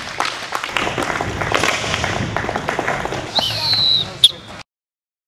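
A small group of onlookers clapping and cheering, with voices mixed in. A high whistle sounds near the end, followed by one sharp loud crack, and then the sound cuts off abruptly.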